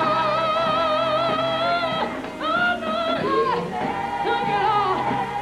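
Female gospel singers performing live with band accompaniment. A lead voice holds a high note with wide vibrato for about two seconds, then breaks into shorter, gliding sung phrases.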